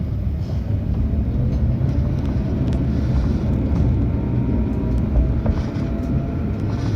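Tram in motion: a steady low rumble with a faint motor whine that drifts slightly in pitch.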